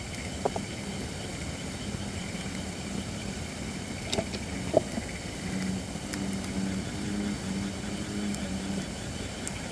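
Holly firewood burning in a campfire, crackling steadily with a few sharp pops, one about half a second in and two close together near the middle. A low droning hum comes and goes in the background for a few seconds after the middle.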